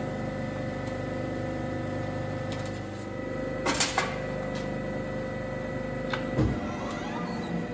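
CNC hydraulic press brake humming steadily while it stands ready, with a brief clatter of thin aluminium sheet being handled about halfway through. A knock comes a little after six seconds, where the hum changes.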